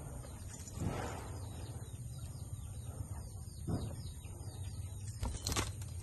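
Caged budgerigars chirping and chattering softly in quick, faint notes over a steady low hum. Three louder, rougher bursts come about a second in, in the middle, and near the end.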